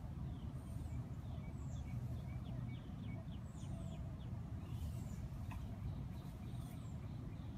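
Small birds chirping over a steady low rumble: a quick run of short chirps, about four a second, in the first half, and high arched whistles every second or two.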